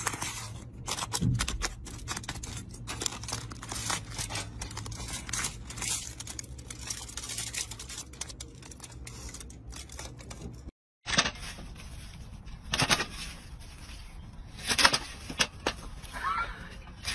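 The charred skin of a baked sweet potato crackling and tearing as it is broken open and forked on aluminium foil, with the foil crinkling: a dense run of small crackles and clicks. After a short silence about eleven seconds in, a few sharp clacks from a hand-lever metal implement.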